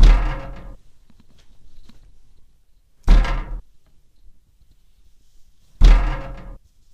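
Three heavy thuds against a window pane, about three seconds apart. Each is followed by a short ringing tail as the glass rattles in its frame. The source of the knocking is unknown and no one can be seen outside.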